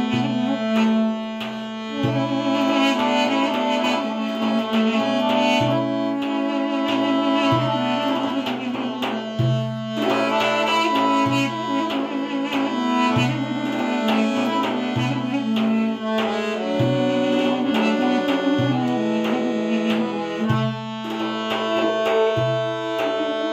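Instrumental folk tune: a short wooden woodwind plays the melody over a Weltmeister piano accordion, which holds a steady drone and sounds a bass note about once a second. A frame drum keeps the beat.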